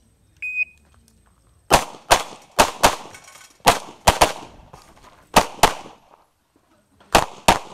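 A short high beep from a shot timer, then a 9mm major Open-division race pistol fired rapidly: about eleven sharp shots, mostly in quick pairs, as the shooter engages targets on the move.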